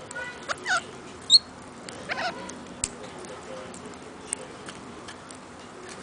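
Australian king parrots feeding on seed: light clicks of beaks on seed and a few short calls, the loudest a brief high chirp about a second in.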